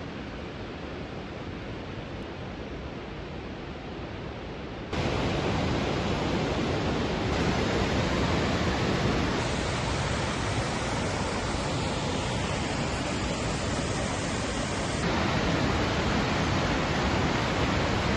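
Steady rushing roar of a waterfall, an even hiss with no distinct events. It steps suddenly louder about five seconds in, and shifts slightly at a few later cuts.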